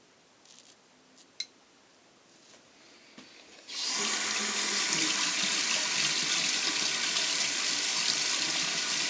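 A few faint handling clicks, then, a little under four seconds in, a tap turned on and water running steadily into a sink.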